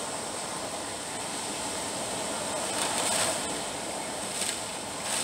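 Hurricane-force wind blowing hard and steadily, heard from inside the house, swelling in gusts about three seconds in and again near the end.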